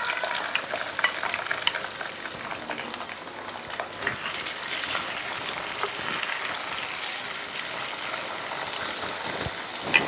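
Karamcha (carissa) fruit sizzling in hot mustard oil in a nonstick wok, just added for a fried pickle, with a wooden spatula stirring and clicking against the pan. The sizzle swells a little about halfway through.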